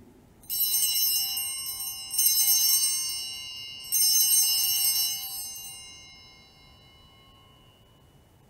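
Altar bells rung three times, each ring high and bright and fading out over a few seconds, marking the elevation of the consecrated host at Mass.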